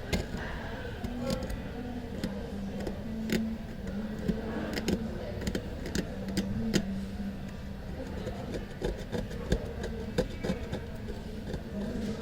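Metal blade scraping leftover glass and glue off a smartphone's frame, with many small sharp irregular clicks and ticks. A low tone that steps up and down in pitch runs underneath.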